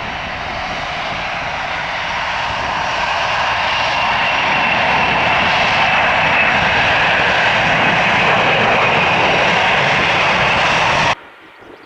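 Jet airliner engine noise with a high whine, growing louder over the first few seconds, then holding steady before cutting off abruptly near the end.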